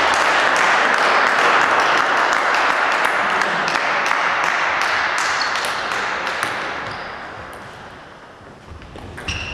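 Spectators applauding, the clapping dying away over several seconds. Near the end come a few sharp, ringing pings of a table tennis ball being struck.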